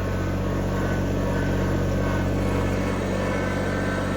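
Excavator engine running at a steady speed, a constant low hum.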